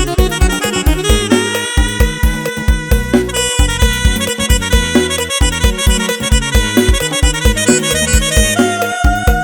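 Electronic organ (electone) played live: a fast dance groove with heavy bass-drum hits several times a second under a held, reedy accordion-like lead melody.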